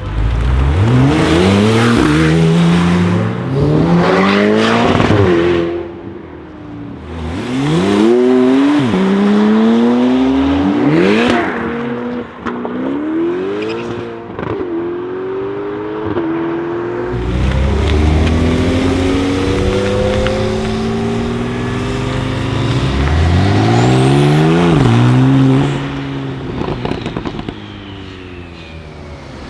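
Porsche 991 Turbo S twin-turbo flat-six with an Akrapovic exhaust accelerating hard several times over, the engine note climbing through the gears and dropping back at each upshift. A few sharp cracks come partway through.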